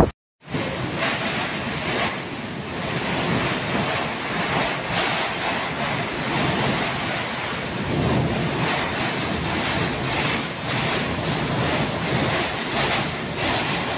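Typhoon winds gusting hard with driving rain, buffeting the microphone in a steady, noisy rush that swells and eases with the gusts.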